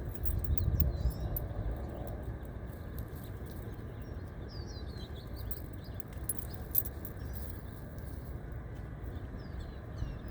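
Wind rumbling on the microphone, strongest in the first two seconds, with small birds giving short high chirps several times.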